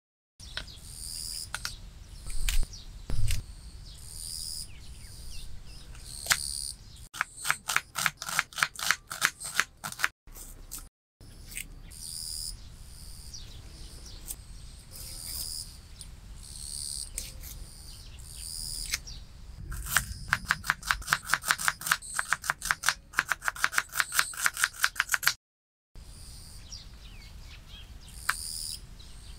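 A tiny knife chopping on a miniature wooden cutting board, in two quick runs of strokes at about eight a second. Small birds chirp over it throughout. Two low thumps come about three seconds in.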